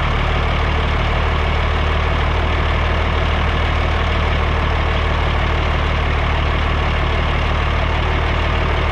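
A heavy vehicle engine idling steadily.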